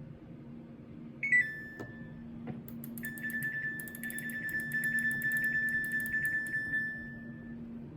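Samsung washing machine control panel beeping: a short beep that dips slightly in pitch about a second in, then a long, steady electronic tone with a fast flutter that stops about half a second before the end. A steady low hum runs underneath.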